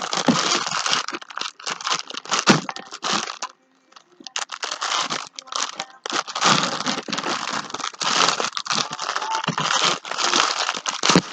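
Plastic wrap and tape on a sub sandwich crinkling and tearing as it is pulled open by hand, with a brief pause about three and a half seconds in.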